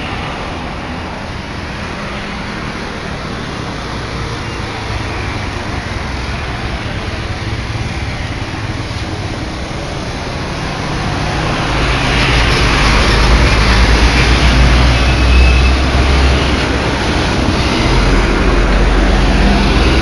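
Roadside traffic noise from passing vehicles. About halfway through, a large bus's diesel engine comes close and rumbles past, and this is the loudest part, with more heavy traffic following.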